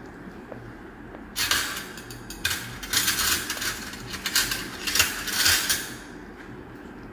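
Metal surgical instruments clinking and scraping against a stainless steel table in a quick, irregular run of sharp bursts, starting about a second and a half in and stopping about six seconds in.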